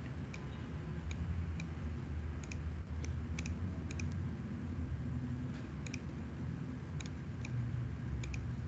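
Scattered clicks of a computer mouse, several in quick double-click pairs, over a low steady hum.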